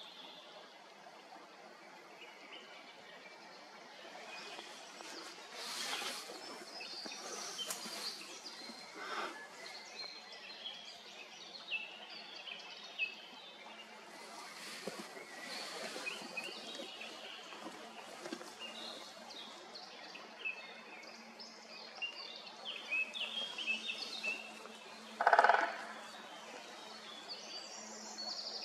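Small birds chirping and singing, many short high notes throughout, with a few louder short bursts; the loudest is a brief half-second burst about three quarters of the way through.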